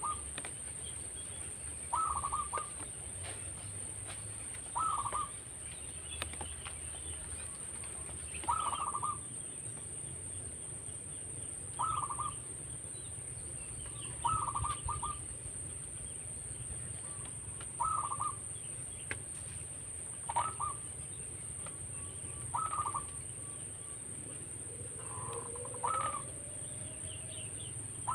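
Zebra dove (perkutut) cooing: a short burst of rolling notes about every two to three seconds, eleven or so in all, over a steady high-pitched whine.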